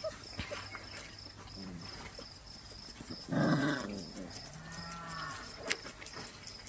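Cattle mooing: one loud call about three and a half seconds in, followed by a lower, drawn-out moo that rises and falls.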